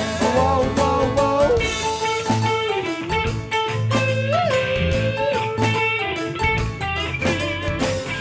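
Live band playing an instrumental break: an electric guitar lead with bent notes over a backing of guitars and drums.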